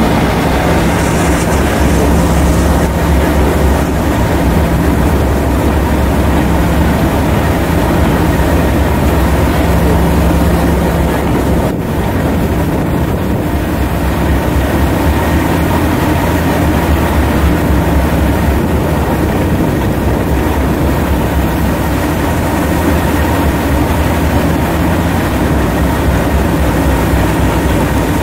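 Steam train running close by: a loud, steady low rumble with a faint steady hum, briefly dipping about twelve seconds in.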